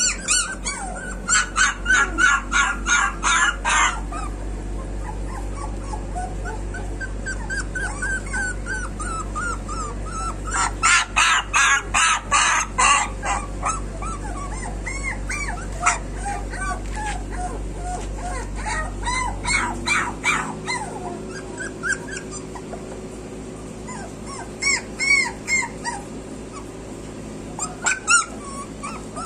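Puppy crying in high-pitched whimpers and yelps, in quick runs of cries with pauses between them.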